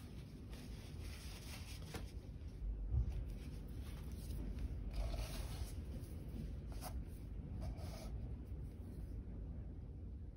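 Faint handling noises as a small painted canvas is shifted across a cutting mat: light rustling and scraping with a few small clicks, and a dull thump about three seconds in.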